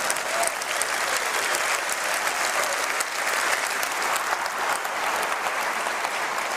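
Large audience applauding, a dense steady clapping that swells up at the start and tapers slightly near the end.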